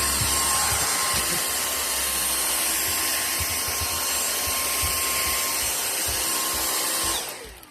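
Vacuum cleaner motor running steadily with a high whine, switched off near the end and starting to wind down in pitch.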